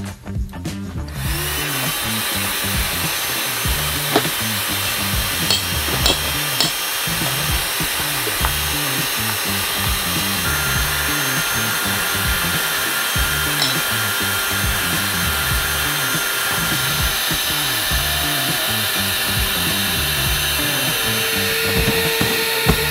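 Electric air pump running steadily, inflating an air mattress, starting about a second in, over background music with a steady beat.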